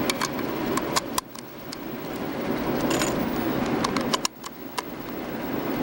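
Rifle cartridges being pressed one by one into a metal box magazine by hand: a series of sharp metallic clicks and scrapes, some in quick pairs, over a steady low background noise.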